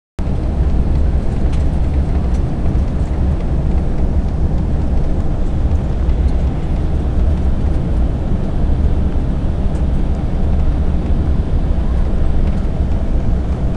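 Steady cabin noise inside an Embraer E-190 on approach: the drone of its twin CF34 turbofan engines and the rush of air over the fuselage, heaviest in the deep low end.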